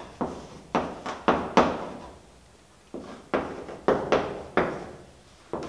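Chalk tapping and scraping on a chalkboard as a word is written: a quick, uneven string of sharp strokes, each fading fast, with a pause of about a second midway before the strokes resume.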